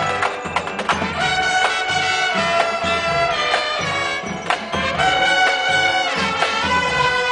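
Brass band playing a tune, held brass notes over a steady drum beat.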